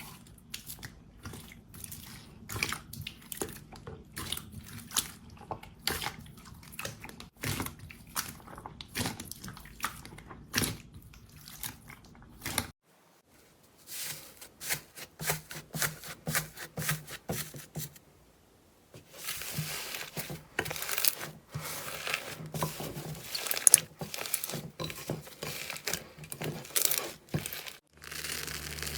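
Slime being pressed and squeezed by hand, giving a run of crunchy crackles and sharp clicks. The sound breaks off briefly about 13 seconds in and again about 18 seconds in.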